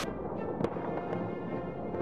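Distant New Year fireworks and firecrackers going off, a few sharp bangs, over music playing.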